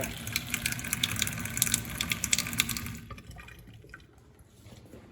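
Water running from a newly installed kitchen faucet into the sink, splashing steadily, then shut off abruptly about three seconds in.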